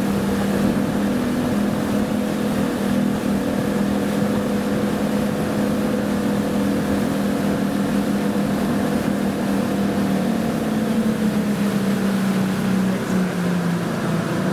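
Motorboat engine running steadily, its pitch dropping slightly near the end.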